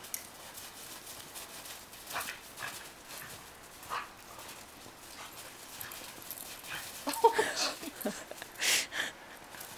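Tibetan Mastiff puppy and Samoyeds playing in snow: paws scuffing and crunching through snow in short scattered bursts, with a short bark about seven seconds in.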